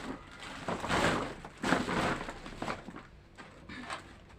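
Plastic bags rustling and crinkling in uneven bursts as portions of meat are wrapped and tied for the freezer.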